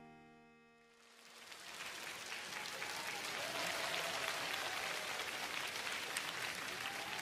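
An acoustic guitar chord rings out and dies away, then audience applause swells from about a second in and carries on steadily.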